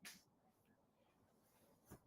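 Near silence: room tone, with a faint tick at the start and another just before the end.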